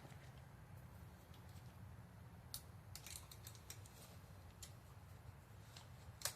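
Near silence: low room hum with a scatter of faint short clicks and ticks, and one sharper click near the end.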